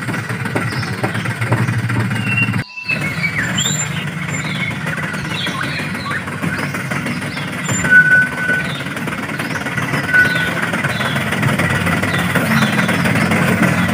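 Radio-controlled scale MAN dump truck's motor and drivetrain running steadily as it crawls through loose dirt, cutting out briefly about three seconds in.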